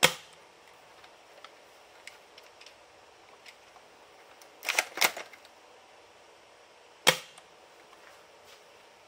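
Spring-powered bolt-action gel blaster (Gang Jiang M24) fired once with a sharp snap at the start. The bolt is worked back and forward in a quick run of clicks about five seconds in, and a second sharp snap of a shot follows about seven seconds in.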